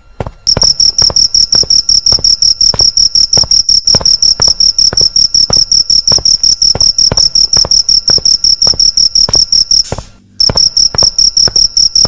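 Crickets chirping in a loud, high, rapidly pulsing trill that starts about half a second in and breaks off briefly near the end, over a regular run of short clicks.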